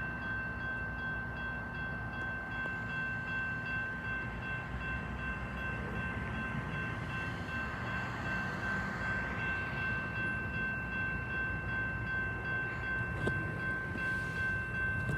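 Railroad grade-crossing electronic bell ringing steadily in a high, clear tone, over a steady low rumble.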